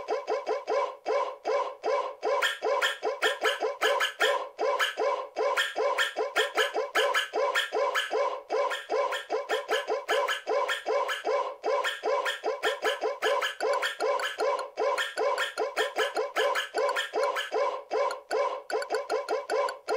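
Keyboard synthesizer loop: short, clipped notes repeating evenly about three or four times a second, with no bass or kick drum.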